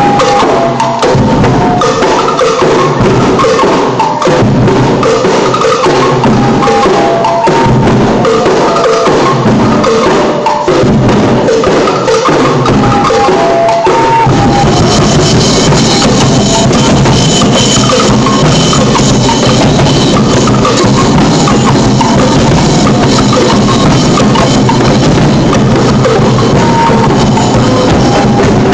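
Festival street-dance percussion band of drums and cymbals playing a loud, driving beat. About halfway through, the playing grows denser and brighter.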